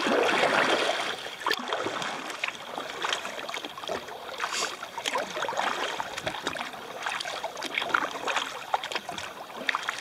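Kayak paddling: the paddle blades dip and splash, and water drips and trickles off them. It is loudest in the first second.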